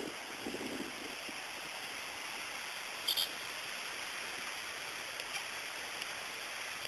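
Steady rushing hiss of the Mannu river in full flood, fast high water running in its channel. A brief high-pitched sound cuts in once about three seconds in.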